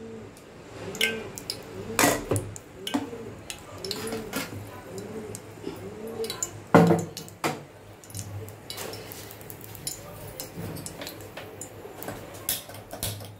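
Metal kitchen utensils and steel vessels clinking and knocking, in scattered sharp clicks with louder knocks about two and about seven seconds in, over a faint repeating melody in the background.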